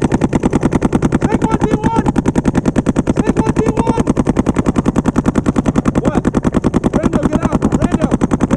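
Paintball markers firing in a steady rapid stream, about ten shots a second, without a break.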